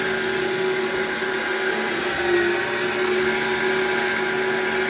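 Yonanas 902 frozen-fruit soft-serve maker's electric motor running steadily, a constant whir with a steady hum.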